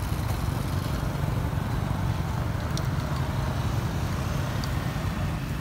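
A vehicle engine idling steadily, a low even rumble, with road traffic around it.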